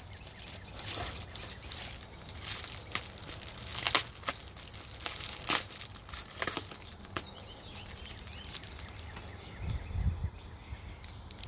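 Foil-lined insulated bubble mailer being pulled open by hand: repeated crinkling and sharp crackling of the foil and bubble wrap, busiest in the first half and sparser later.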